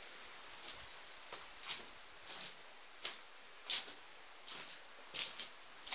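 Footsteps crunching on pebbles and shingle, a step about every 0.7 seconds at a slow walking pace.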